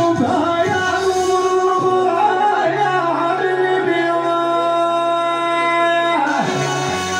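Man singing into a microphone with Yamaha electronic keyboard accompaniment: ornamented, wavering vocal lines, then a long held note from about three to six seconds in.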